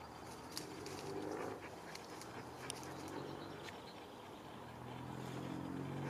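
A husky moving through dry leaf litter and undergrowth, its paws making scattered crackles and rustles. A low, steady hum comes in about a second in and returns, louder, near the end.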